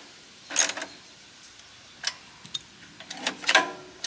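Recoil pull-starter on a wood chipper's engine being pulled by hand a few times, each short pull giving a quick mechanical ratcheting whirr, with a closer pair of pulls near the end. The starter is a replacement part being tested after it had been catching and not pulling back.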